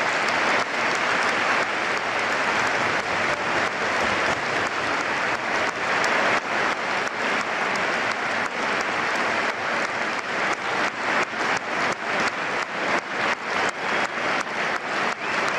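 Football stadium crowd applauding. The clapping settles into a rough rhythm of about two claps a second in the second half.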